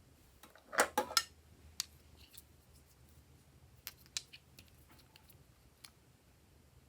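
A quick run of three sharp clicks about a second in, followed by a few fainter scattered clicks.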